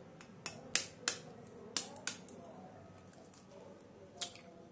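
Steel spoon tapping an eggshell to crack it: a handful of sharp clicking taps, most in the first two seconds and one more near the end.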